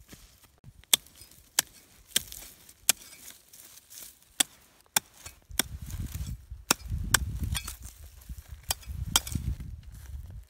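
Machete blade chopping and digging into dry, cracked mud to dig out a snail buried in the rice field: about eleven sharp strikes at uneven intervals. Low rumbling scrapes join in from about halfway.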